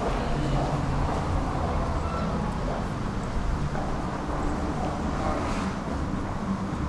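Steady low vehicle rumble.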